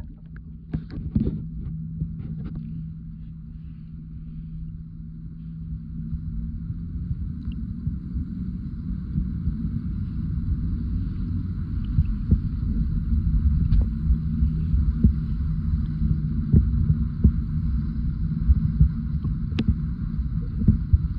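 Underwater sea ambience: a dense low rumble of moving water with a steady low hum and scattered short clicks and ticks, growing somewhat louder partway through.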